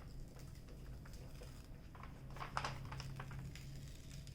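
Faint rustling and light clicks from a diamond painting canvas and its cover paper being handled, a cluster of them about two to three seconds in, over a low steady hum.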